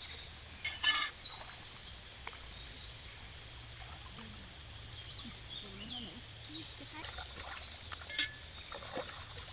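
Outdoor ambience with a steady low background hiss and faint voices, broken by a few short, sharp sounds: the loudest about a second in and another near the end.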